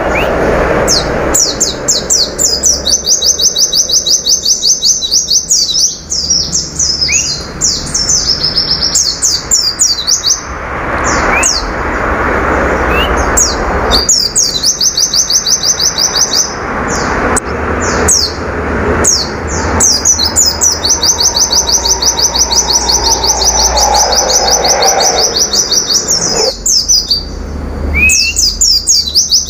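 Caged white-eye (pleci) singing long, fast, high-pitched trills of rapidly repeated notes, stopping and starting again every few seconds, over a low background hum.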